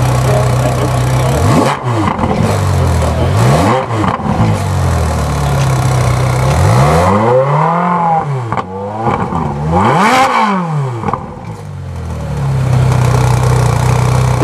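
Supercar engine idling and then revved four times: two quick blips of the throttle, then two longer revs that climb high and fall back, before it settles to idle again.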